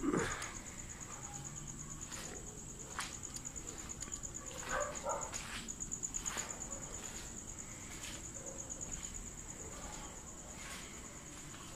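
Crickets chirring steadily in a high, pulsing trill, with irregular footsteps on concrete pavement.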